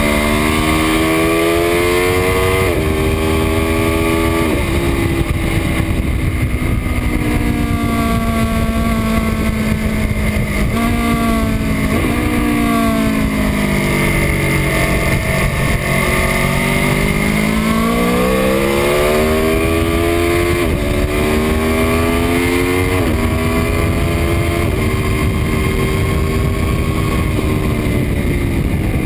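2018 Aprilia Tuono V4 RR's V4 engine under hard acceleration at speed. The revs climb and drop sharply at each gear change several times. Around the middle the revs fall low as the bike slows for a corner, then climb again through the gears. Wind rushes over the microphone throughout.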